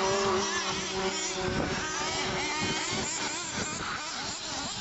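Several radio-controlled off-road buggies racing, their small motors whining and buzzing, rising and falling in pitch over one another as they accelerate and slow.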